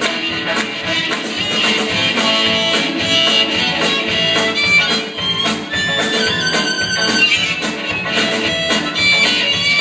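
Live band playing a rock number with electric guitars, keyboard and a drum kit, the cymbals struck on a steady beat about twice a second.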